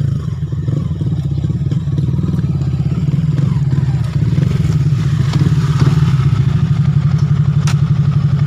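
Yamaha Sniper 150 (Y15ZR) single-cylinder engine running as the bike rides in and settles, a steady low pulsing beat, with a sharp click near the end. With a new clutch damper and hyper clutch fitted, the engine runs without the clutch-housing rattle (kalampag).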